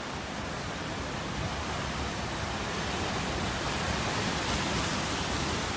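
Car driving through deep floodwater, its wheels pushing a wave and spraying water in a steady rushing wash that grows louder over the first few seconds and is loudest about four seconds in.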